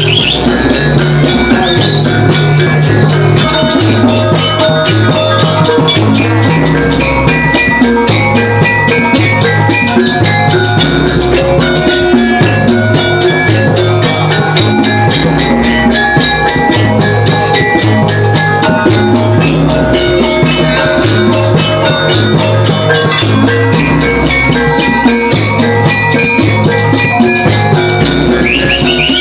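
Javanese gamelan music for a jaranan dance. Drums and metallophones keep up a fast, steady beat under a melody of short ringing metal notes, and a deep low tone swells in every few seconds.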